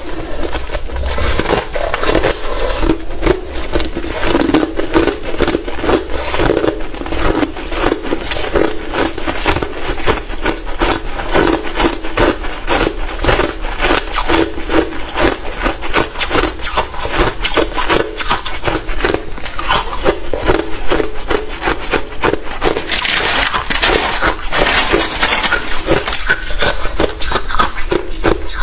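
Close-up chewing of hard, refrozen crushed ice: rapid, continuous crunching with no pauses.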